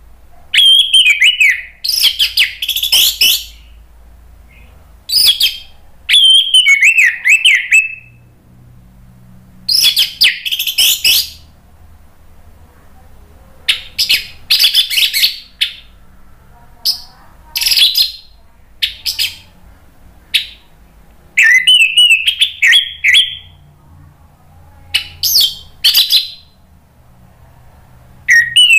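Orange-headed thrush singing loudly: about a dozen rich, warbling whistled phrases with fast trills, each a second or two long, separated by short pauses.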